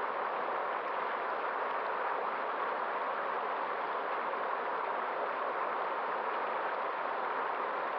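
Steady, unbroken rush of a flowing stream, with no separate splashes, calls or swells.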